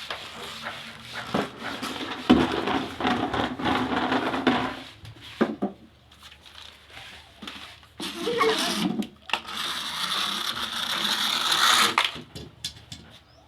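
Plastic toy vehicles being handled, with scraping, rattling and clicking in two long stretches separated by a quieter pause of a few seconds.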